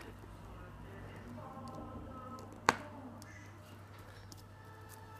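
A single sharp click of hard plastic about halfway through, as a slime-filled plastic egg capsule is handled. A smaller click comes right at the start, over a faint steady hum.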